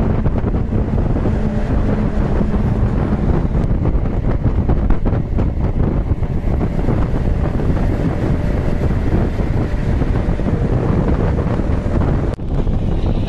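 Wind buffeting the microphone over the steady rumble of a moving non-AC bus at highway speed. The roar drops out sharply for a moment about twelve seconds in.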